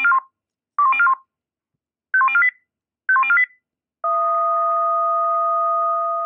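Fire-brigade radio alerting tones. There are four short bursts of rapidly stepping beeps about a second apart: five-tone selective calls addressing the units. About four seconds in, a steady two-tone fire-alarm signal follows and holds on.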